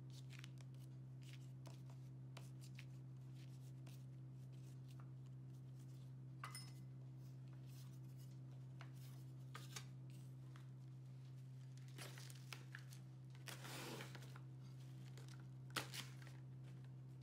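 Quiet handling sounds over a steady low hum: faint soft ticks of hands working dough on a silicone pastry mat, then a rustling, tearing stretch of plastic cling film being pulled over the trays about two-thirds of the way through, and a sharp click near the end.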